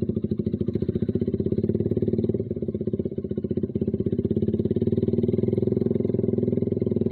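Suzuki Satria FU carburettor single-cylinder four-stroke running through a Kau Mahachai racing exhaust, a steady rapid train of exhaust pulses as the bike is ridden slowly.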